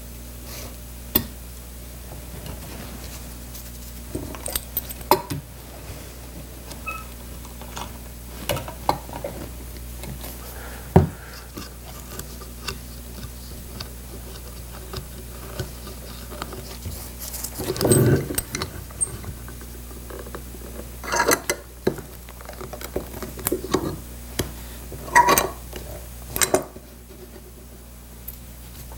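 Scattered clinks, taps and knocks of small steel C-clamps being handled and fitted onto a freshly glued wooden chair rail, busiest about two-thirds of the way through, over a steady low hum.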